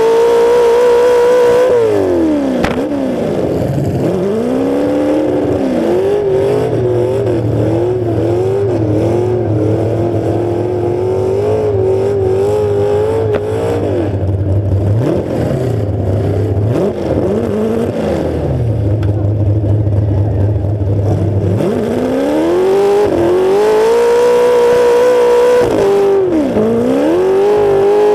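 Demolition derby car's engine blasting through open exhaust stacks on the hood, revving up and down as it drives: high revs near the start and again near the end, lower and wavering in between. One sharp knock about three seconds in.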